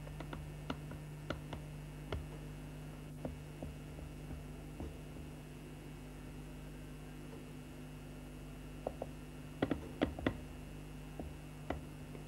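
Steady low electrical hum with scattered light clicks and taps, bunched in the first couple of seconds and again about ten seconds in.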